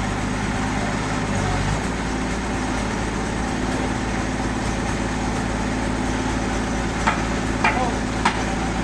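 Sawmill machinery running steadily with a low engine-like hum whose note changes about two seconds in, and a few sharp knocks near the end.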